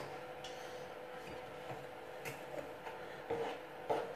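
A metal spoon clinking and scraping in a frying pan of cheese sauce, a couple of light taps near the end, over a faint steady hum.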